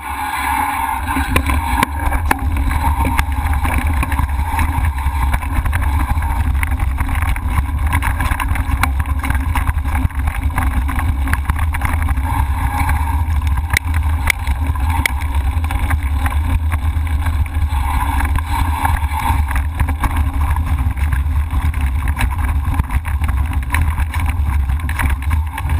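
Steady rumble and wind buffeting on a handlebar-mounted camera as a mountain bike rides over a gravel and dirt track, with many small clicks and rattles from the bike jolting over stones.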